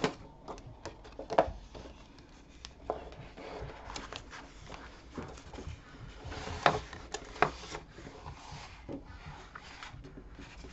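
A paper dust jacket being slid off a large colouring book and the book handled on a wooden table: paper rustling and sliding, with several sharp taps, the loudest about a second and a half in and twice around seven seconds in.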